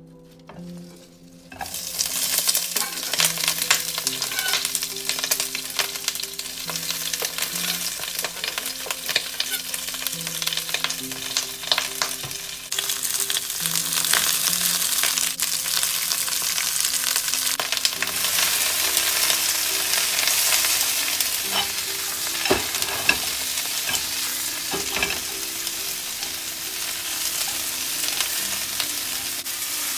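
Food frying and sizzling in a hot metal pan as it is stirred, with frequent clicks and scrapes of the utensil. The sizzle starts suddenly about a second and a half in.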